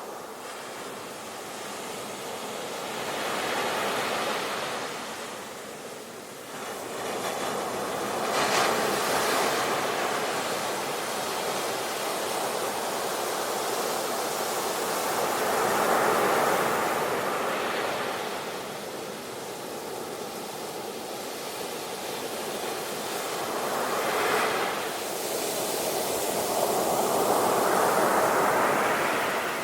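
Ocean waves breaking and washing on the shore, each one swelling up and then falling away, about five in turn.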